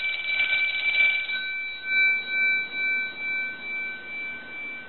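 Kellogg Redbar desk telephone's twin brass ringer gongs, rung by a telephone analyzer's ring signal during a post-repair ring test. The bell clatter stops a bit over a second in, and the gongs ring on alone with a slow wavering fade.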